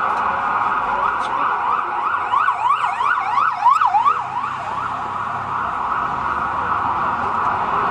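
Emergency vehicle siren on a city street, going into a fast rising-and-falling yelp of about three sweeps a second for a couple of seconds in the middle, over a steady wash of street noise.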